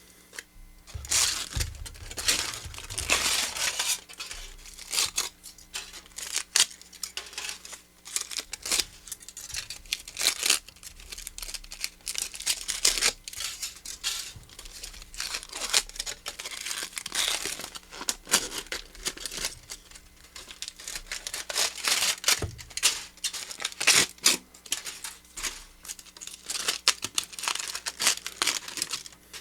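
Thick aluminum foil being unwrapped and pulled apart by hand, crinkling and tearing in irregular bursts.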